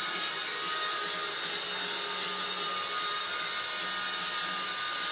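A small electric motor or fan whirring steadily, with a thin high hum on top.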